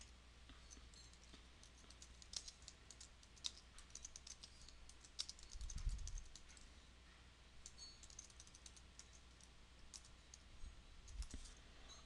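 Faint, irregular key clicks from a computer keyboard as code is typed, with a dull low thump about six seconds in.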